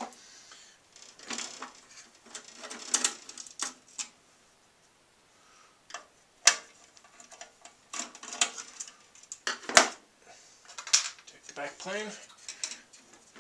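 Scattered clicks, taps and light metallic scrapes of a screwdriver and hands working on an SGI Octane's sheet-metal card cage as the screws of its backplane connector board are taken out. The clicks come irregularly, with a quiet gap a few seconds in.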